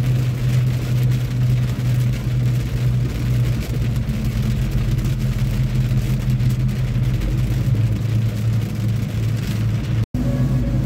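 Steady low drone of a semi-truck's engine and road noise inside the cab while driving at speed. It cuts out for an instant near the end.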